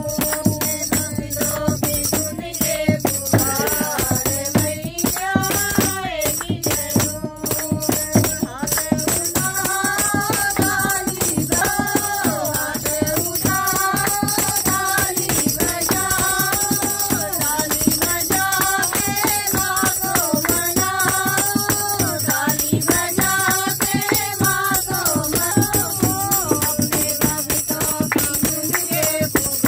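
Hindu devotional bhajan to the Mother Goddess, sung as a kirtan by a group of voices over a steady, fast rhythm of hand percussion.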